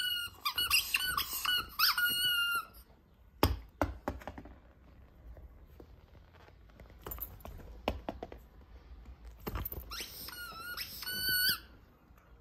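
Squeaky rubber dog toys squeaking rapidly and repeatedly as a corgi chews them, in two bouts, at the start and again near the end. A few sharp knocks come between them.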